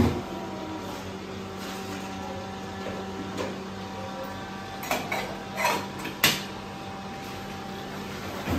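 Kitchen handling noises: a sharp knock at the start, then a few clinks and clatters of pots or utensils about five to six seconds in, over a steady electrical hum.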